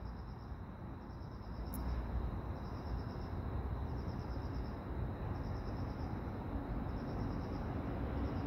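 Cricket chirping in short, finely pulsed high trills, about one every second and a half, over a steady low rumble.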